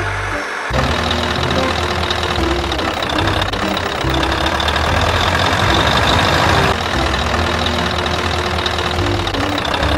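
Dubbed-in truck engine sound effect running steadily, coming in about a second in.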